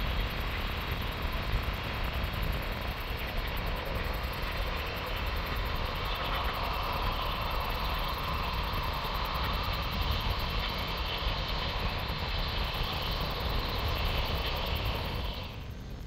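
Jet engine noise from an Airbus A350-1000 prototype's Rolls-Royce Trent XWB turbofans: a steady loud rumble with a whine that grows stronger about six seconds in, then cuts off abruptly near the end.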